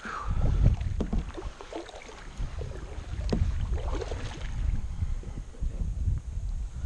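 Double-bladed kayak paddle stroking on alternating sides through shallow river water, a string of short splashes and drips. A low rumble of wind on the microphone runs underneath.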